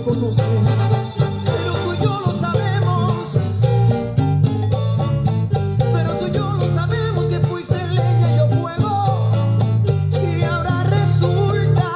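Latin salsa-style song playing, with plucked guitar over a strong, pulsing bass line.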